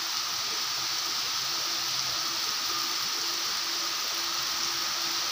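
Steady heavy rain falling on a waterlogged lawn and a flooded paved yard, an even hiss of drops hitting standing water.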